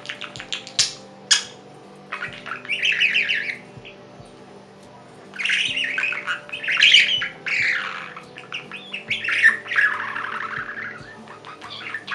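Pet budgerigar chattering and squawking in bursts of rapid warbling notes, with a long run of chatter in the second half.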